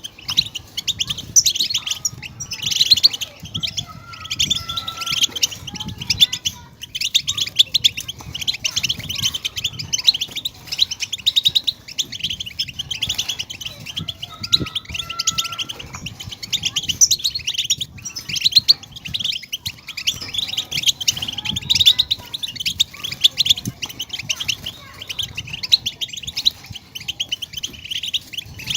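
European goldfinches chirping and twittering in a rapid, unbroken stream of short high notes.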